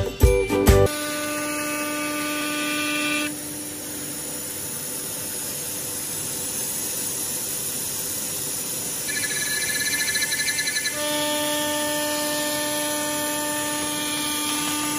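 CNC router with a 6.0 kW spindle cutting aluminum composite panel: a steady hiss of cutting under a whining tone with overtones. The whine fades about three seconds in, a warbling higher tone comes in for a couple of seconds, and the whine returns about eleven seconds in. A jingle of music plays for the first second.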